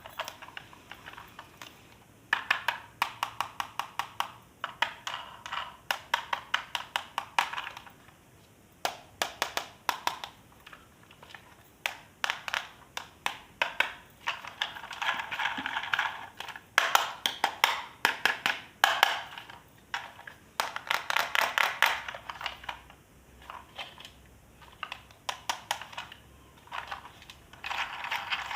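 Plastic toy mechanism clicking in fast runs, like a ratchet being worked, with short pauses between runs.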